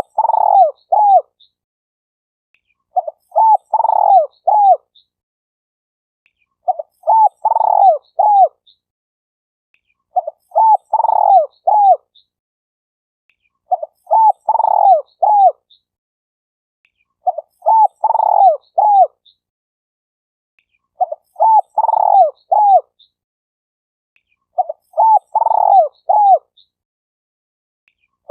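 Spotted dove (tekukur) cooing: a short phrase of four or five coos, repeated evenly about every three and a half seconds, with clean silence between the phrases.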